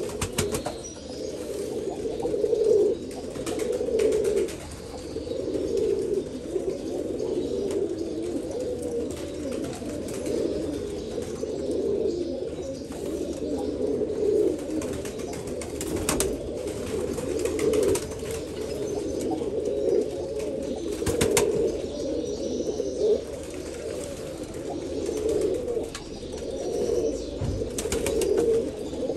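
Albanian domestic pigeons cooing over and over, low and unbroken, one coo running into the next. A few short sharp clicks sound now and then.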